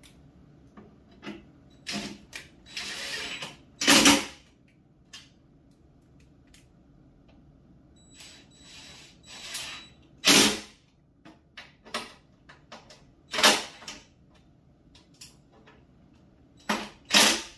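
Cordless drill driving the final screws into the table's metal mounting bracket, run in several short bursts of about half a second each, with small clicks and knocks of handling between.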